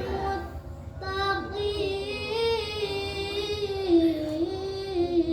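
A young girl's voice reciting the Qur'an in melodic qiro'ah style. A phrase ends, she takes a short breath, and from about a second in she holds one long drawn-out phrase with wavering, ornamented turns of pitch. A steady low hum runs underneath.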